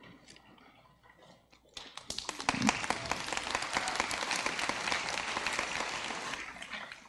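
Audience applause, starting about two seconds in and dying away near the end.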